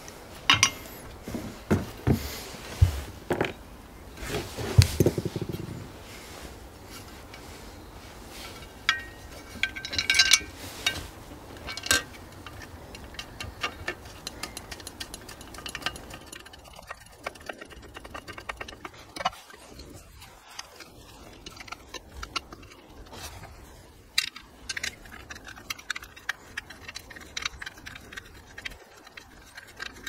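Bolts and hand tools clinking and rattling against a metal battery tray as it is bolted onto a bicycle frame's bottle-cage mounts: scattered knocks, the loudest in the first few seconds, then lighter clicks.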